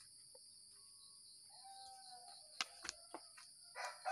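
Steady high-pitched chirring of crickets, with a few sharp clicks about two-thirds through and a rooster starting to crow near the end.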